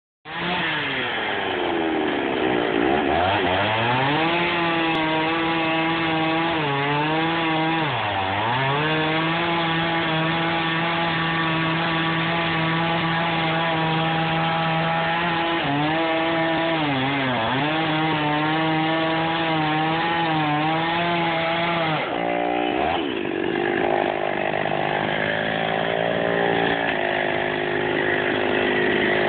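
Large two-stroke chainsaw revving up and running at high speed as it cuts through a thick log, its pitch dipping several times as the chain bogs down in the wood. About 22 seconds in the cut ends and the saw drops to a lower, uneven running.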